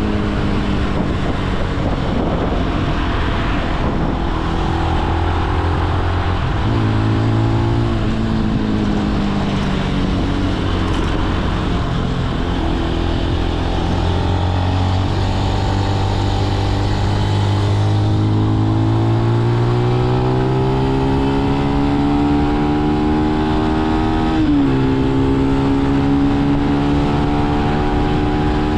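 Benelli BN125 motorcycle's single-cylinder engine running on the move, its pitch rising and falling with the throttle: a long steady climb from about two-thirds of the way in, a sudden dip near the end, then a steady cruise. A constant rushing hiss runs under the engine.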